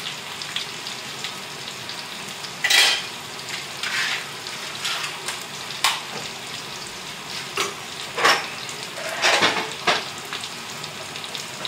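Potatoes and bacon sizzling steadily in a cast-iron frying pan, with half a dozen short knocks and clatters scattered through.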